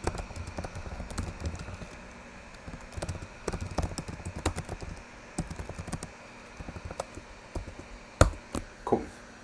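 Typing on a computer keyboard: a run of irregular key clicks, with one sharp, louder key press near the end.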